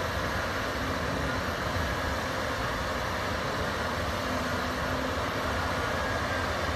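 Diesel engines of two Komatsu crawler dozers running steadily under load as they push dirt.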